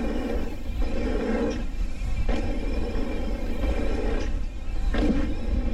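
Mountain bike rolling down a dirt jump line: wind rumbling on the microphone and tyres running over packed dirt, with a few short knocks from the bumps.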